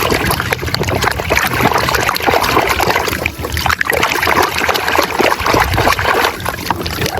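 Running water splashing and trickling steadily over a muddy toy as it is washed.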